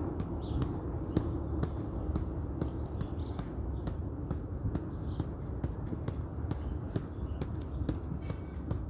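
Soccer ball being juggled on the foot, keepie-uppie style: a regular tap about twice a second as the foot strikes the ball, over a steady low background rumble.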